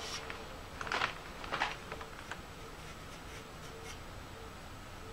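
A few brief rubbing and scraping sounds of parts being handled in the first two seconds, with a couple of faint ticks, then quiet room tone with a faint hum.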